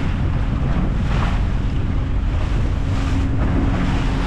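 Wind buffeting the microphone over the steady drone of twin outboard motors and the rush of the boat's wake.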